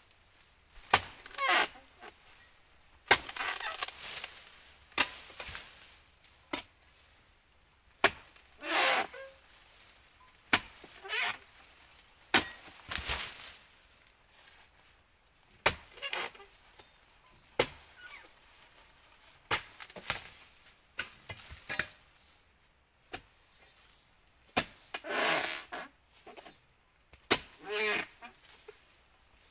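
Repeated sharp chopping strikes of a blade into oil palm fronds, irregular, about one every one to two seconds, several followed by rustling as the cut fronds are moved. Insects buzz steadily throughout.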